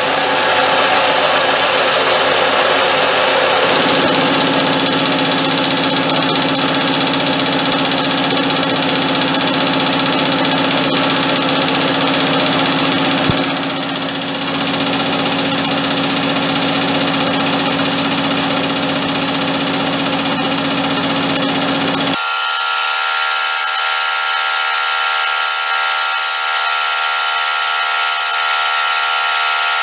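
Metal lathe running a rotary flattening cutter through a heavy pass, 2 mm deep at doubled feed, a loud steady machining noise. A steady tone joins about four seconds in, and about 22 seconds in the sound abruptly loses its low end and turns thinner and higher.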